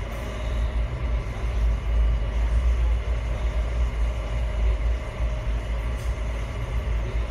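A passenger train running along the track, heard from inside the carriage: a steady, deep rumble that swells and eases.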